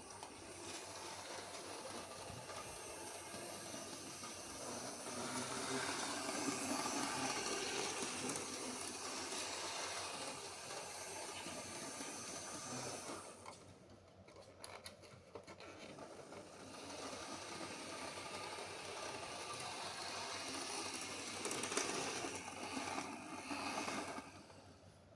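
Model train running on its track: a steady whirring of motor and wheels that grows louder, fades and dips for a few seconds about halfway through, then comes back before falling off near the end, as if the train passes close by twice.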